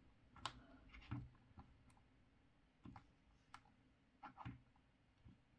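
Faint, irregular clicks and taps of a plastic Star Wars Black Series Snowtrooper action figure being posed by hand, about eight in all, as its joints are moved and it is set down on the table.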